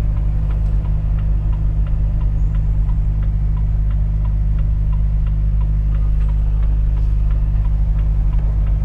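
Volvo FH 460 truck's 13-litre six-cylinder diesel running steadily, heard from inside the cab, with the turn-signal indicator ticking at a regular beat.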